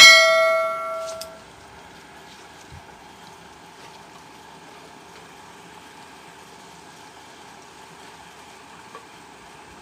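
A bright bell-chime sound effect, part of a subscribe-button animation, rings out at the start and dies away over about a second and a half. After it only a faint, steady background hiss remains.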